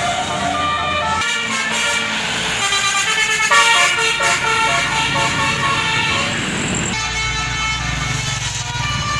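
Bus telolet 'basuri' multi-tone horn playing a tune of changing notes, with a bus engine running underneath; the engine rumble falls away about a second in and comes back near the end.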